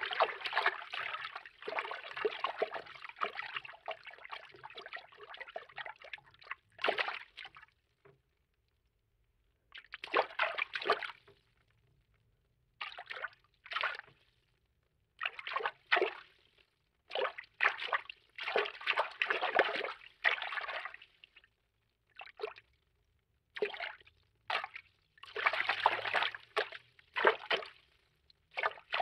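Water-movement foley for an animated cartoon: water sloshing and swishing, continuous for about the first seven seconds, then broken into a string of short separate swishes with brief silences between.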